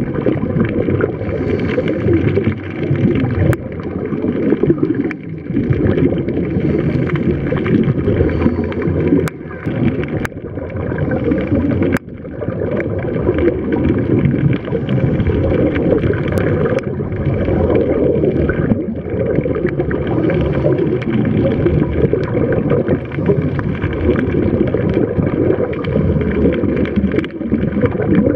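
Muffled underwater noise picked up by a camera submerged in the sea: continuous low rushing and bubbling of water around the scuba divers.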